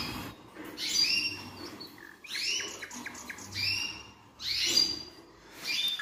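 Canaries chirping: a series of short calls, about one a second.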